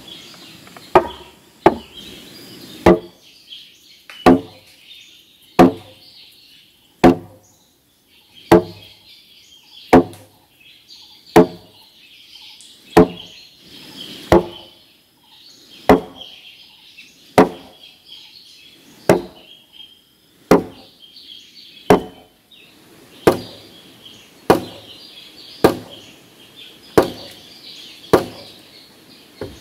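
Wood being chopped with an axe in steady, regular blows, about one every second and a half and a little quicker near the end. High chirping continues in the background.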